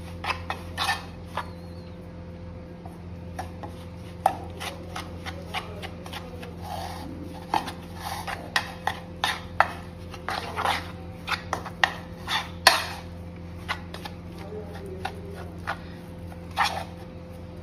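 Steel spoon scraping and clinking against the bowl in quick, irregular strokes while stirring a thick, crumbly marinade of roasted gram flour and hung curd.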